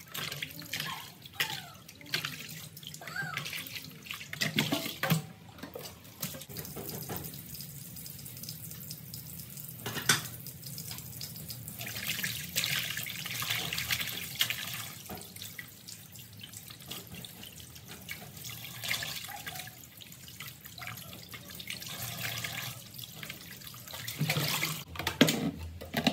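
Tap water running into a plastic basin of water while hands rub and slosh raw pork offal in it, with irregular splashes and small knocks.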